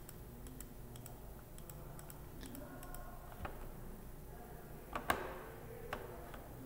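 Faint, scattered clicks of a computer keyboard and mouse, with one louder click about five seconds in, over a low steady hum.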